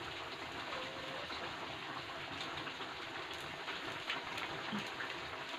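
A low, steady hiss with a few faint ticks.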